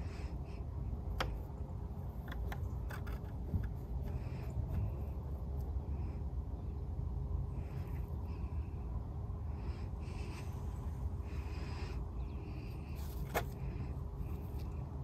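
A cat pawing and sniffing at loose dirt, giving faint scattered scratches and clicks over a steady low outdoor rumble, with brief higher calls here and there.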